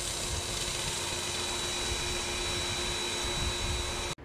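Diesel-fired steam pressure cleaner running with its wand spraying: a steady rushing hiss with a thin high whine and a lower hum held through it. It cuts off abruptly near the end.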